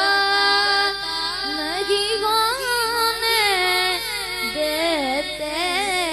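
A boy singing a naat solo into a microphone, with no instruments. He holds a long note, then sings ornamented runs that rise and fall.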